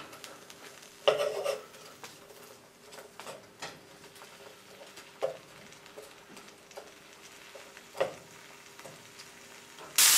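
Wooden spoon stirring chopped onions, bell peppers and bacon in a nonstick skillet, with a few separate scrapes and knocks against the pan and quiet between them. A loud, steady sizzle of the vegetables and bacon frying cuts in suddenly at the very end.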